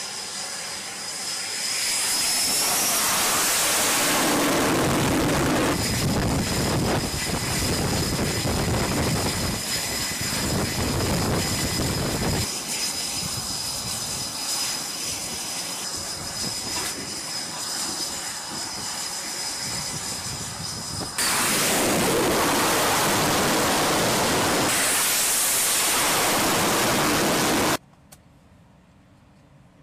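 F/A-18 jet engines running loud on an aircraft carrier's flight deck, a dense rush of jet noise with a high, steady turbine whine. The noise grows louder about two-thirds of the way through, then cuts off abruptly near the end.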